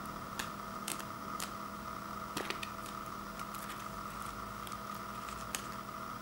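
Plastic sauce packet being torn open and squeezed in the fingers: scattered soft crinkles and clicks over a steady background hum.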